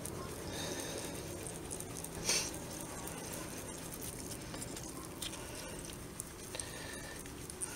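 Small sponge soaked in ferric chloride scrubbing back and forth over a printed circuit board, a soft wet rubbing that is etching the exposed copper away. One louder tap about two seconds in, and a few lighter ticks near the end.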